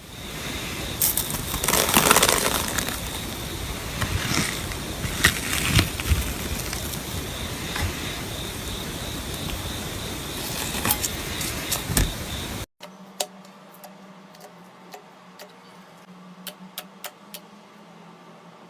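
Slime being squeezed and stretched by hand close to the microphone, a dense crackle of small pops and clicks. After a cut about two-thirds through, quieter slime handling with sparse sharp clicks.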